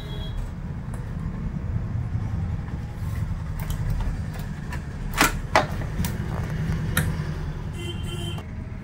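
Plastic back-panel clips of an HP LCD monitor snapping into place as the panel is pressed on by hand: a few sharp clicks, the loudest about five seconds in, again half a second later and near seven seconds, over a steady low rumble.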